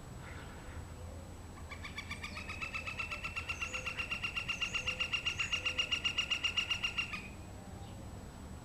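A woodpecker makes a rapid, evenly spaced series of about ten sharp pulses a second for about five seconds. The series grows louder toward its end and then stops abruptly.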